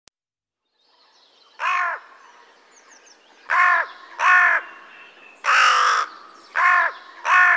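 A crow cawing six times, harsh and evenly paced; the fourth caw is longer and rougher than the rest.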